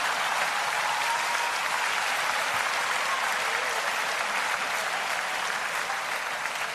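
Studio audience applauding steadily after a punchline, tapering off slightly near the end.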